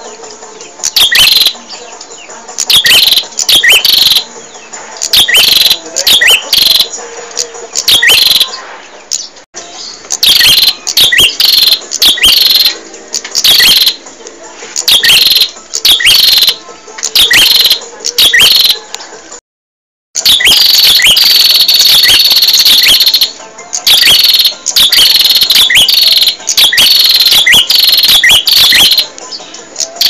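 Prenjak (prinia) singing: rapid, loud runs of short chirping notes that fall sharply in pitch, repeated phrase after phrase. A short silent break comes about two-thirds of the way through, followed by a longer unbroken trill.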